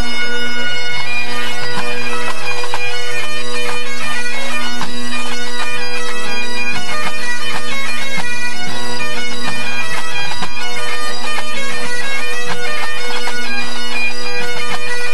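A pipe band's Great Highland bagpipes playing together in a tune-up, with steady drones under the chanters' fast melody and many quick grace notes.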